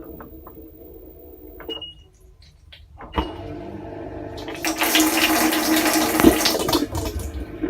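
Washing machine taking in water: a rushing of water into the drum starts about three seconds in, grows loud about halfway through, and eases off near the end.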